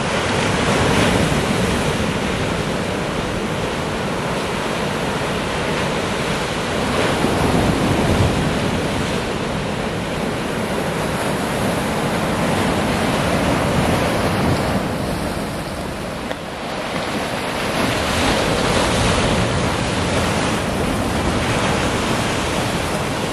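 Sea surf breaking and washing over shoreline rocks, a continuous rushing that swells and eases every few seconds as each wave comes in.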